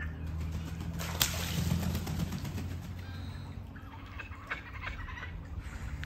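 Kookaburra calls over the steady low hum of a running robotic pool cleaner, the calls coming in short bursts in the second half. About a second in there is a sharp hit followed by a short hiss.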